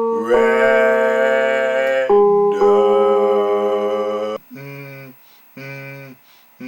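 Singing: two long held notes, then a few short lower sung notes in a deeper voice.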